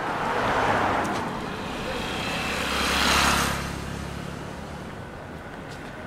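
Road traffic: two vehicles pass close by, one swelling and fading about a second in and a louder one around three seconds, over a steady city hum.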